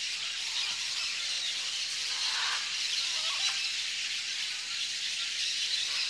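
Steady, dense high-pitched insect chorus, with a few faint bird calls about halfway through.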